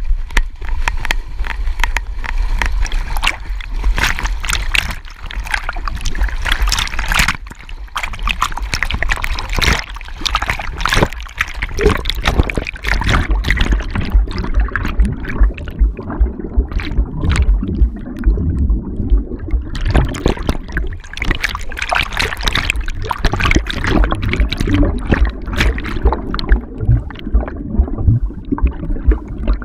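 Water splashing, sloshing and gurgling against a GoPro camera strapped to a swimming dog, with a constant low rumble and many sharp irregular splashes as the camera dips under the surface and comes back up.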